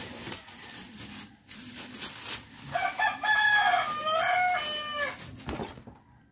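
A rooster crowing loudly once, one long crow of about two and a half seconds starting about three seconds in. Before it come a few knocks and rattles.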